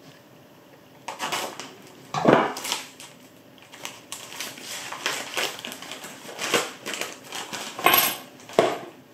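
Small survival-kit items and their plastic packaging being handled and unpacked from a pouch: irregular crinkling, rustling and light clicks, loudest about two seconds in and again near the end.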